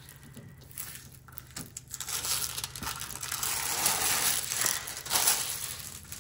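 Clear plastic protective film on a diamond painting canvas crinkling as it is handled, lifted and smoothed down. The crinkling starts about two seconds in and is loudest near the middle and toward the end.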